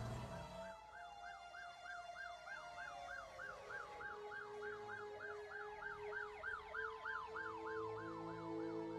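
Emergency-vehicle siren sound effects: a fast yelp that rises and falls about three to four times a second, with a slower wailing siren gliding up and down over it.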